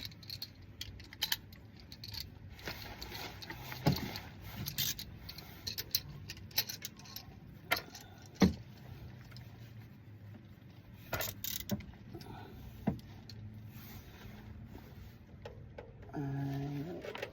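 Metal tools clinking and clanking in scattered sharp clicks as an oil filter wrench is fitted onto the car's oil filter and worked to loosen it.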